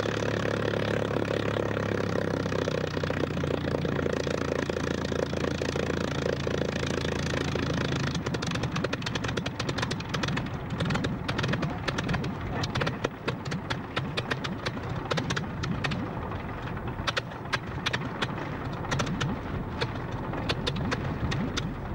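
Rolls-Royce Griffon V12 of a Spitfire running on the ground with the propeller turning, first at a steady idle; about eight seconds in the steady note breaks up into a rougher, lumpy running with frequent exhaust crackles and pops as the engine runs slower.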